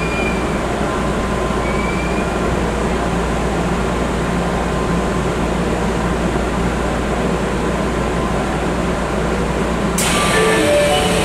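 Inside a stopped Osaka Metro 30000A-series train: a steady hum from the car's running equipment. About ten seconds in, a sudden hiss of air comes in, and the first tones of the door-opening chime sound just before the doors open.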